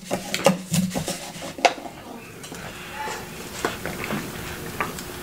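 A paper soda cup picked up and drunk from: a few sharp clicks and knocks in the first two seconds, then quieter drinking sounds with faint ticks.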